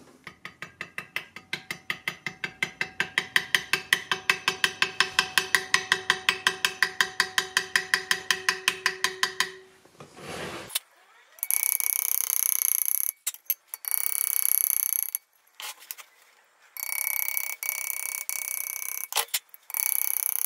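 For about ten seconds, fast, even mechanical ticking at about six ticks a second, with a faint ringing tone under it. After a short pause, a steel graver cutting into a brass plate clamped in a vise: a steady high-pitched buzz that starts and stops in runs of a few seconds.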